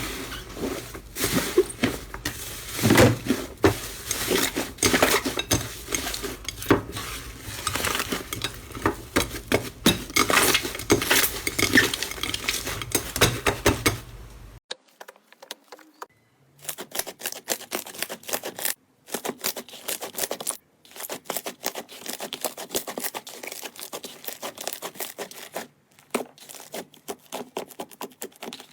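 Slime being squeezed and pressed by hand, giving dense crackling and popping clicks. About halfway through it changes to a quieter clip of sparser pops broken by short silences.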